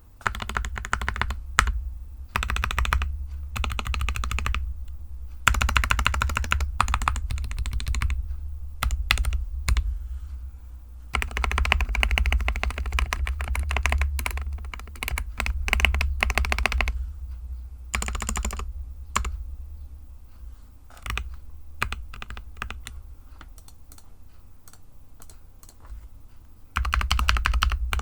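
Typing on a GK61 60% mechanical keyboard: fast runs of key clacks in bursts with short pauses between them. The keystrokes thin out to a few scattered presses in the last several seconds, then a fast run starts again right at the end.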